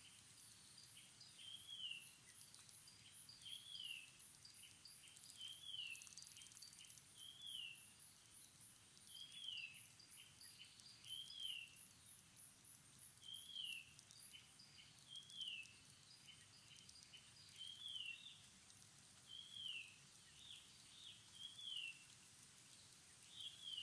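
A bird calling faintly outdoors, repeating a short falling note about once every two seconds, with a fast, regular, very high-pitched pulsing behind it that stops a little past the middle.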